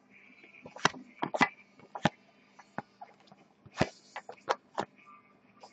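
A stack of 2014 Topps Prime football trading cards being flipped through by hand, each card slid off the stack with a short papery snap; about eight snaps come at uneven intervals.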